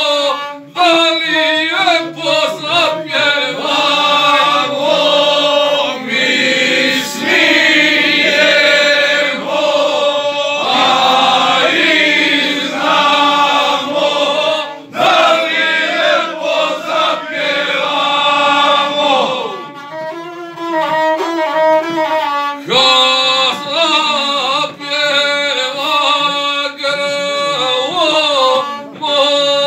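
A gusle, the single-string bowed folk fiddle of Montenegro, bowed continuously while a man sings an epic song over it, dipping briefly about two-thirds of the way through.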